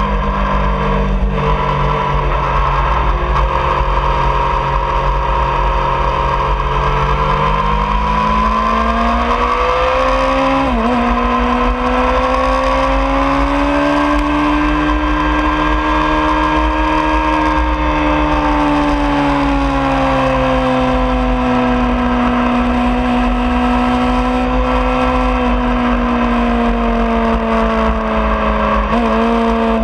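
2003 Honda CBR600RR's 599 cc inline-four engine running hard at high revs on track, its note rising and falling slowly through the bends, with two brief breaks about eleven seconds in and near the end, over a steady wind rumble on the mounted camera's microphone.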